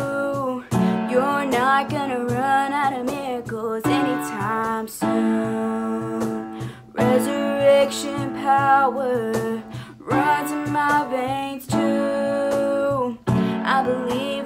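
A young woman singing a worship song over a sustained instrumental accompaniment, in sung lines with short breaths between them about every three seconds.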